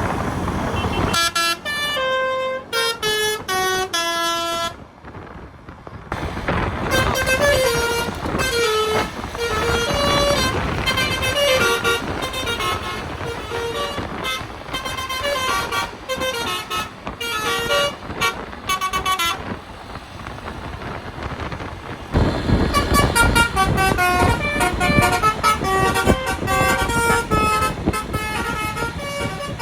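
Bus-mounted Basuri telolet musical horn playing tunes note by note, the pitch stepping from note to note, with a falling run of notes early on and a short break about five seconds in. From about 22 seconds in, loud engine and road rumble from the bus sits under the horn tunes.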